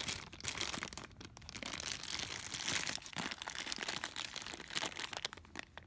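Clear plastic bag crinkling irregularly as it is handled, with a power adapter and cable inside.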